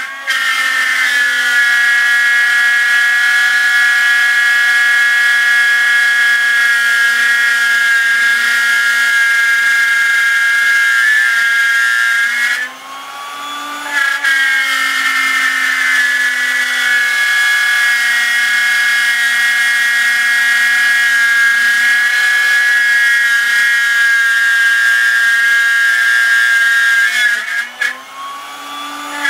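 Performax plunge router in a router table, spinning a 1/4" solid carbide downcut spiral bit through 3/4" MDF as the board is turned on a circle-cutting jig, a steady loud high whine with the noise of the cut. Twice, about halfway and near the end, the whine drops away briefly and climbs back in pitch.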